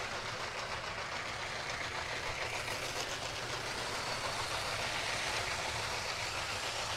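Two battery-powered LEGO trains, the yellow 60197 passenger train and the white high-speed 60051, running around plastic track: a steady whir of their small electric motors and the rattle of plastic wheels over the track.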